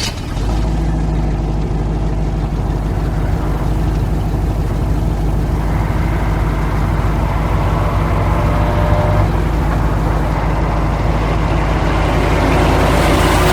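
Racing truck engine running steadily with a deep low hum, growing a little louder near the end.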